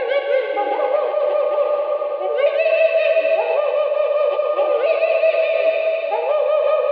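Common loon calls: long wavering cries, a new one starting about every few seconds and overlapping the last, as if with reverb. This is the source the Spinosaurus sound effect is said to be built from.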